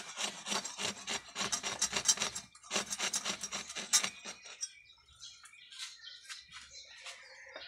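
Metal hand saw cutting through a water buffalo's horn in quick back-and-forth strokes. There is a brief pause about two and a half seconds in, then more hard strokes, which give way about four seconds in to lighter, fainter strokes.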